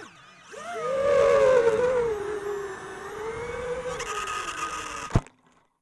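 Diatone Roma F5 5-inch FPV quadcopter's brushless motors and propellers whining. The pitch rises about a second in, then sags and wavers as the nearly flat 4S battery drops toward 12 V. A sharp knock comes near the end, then the sound stops abruptly.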